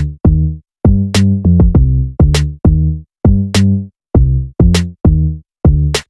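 Background music: an electronic track with a steady drum-machine beat and short, repeated bass notes.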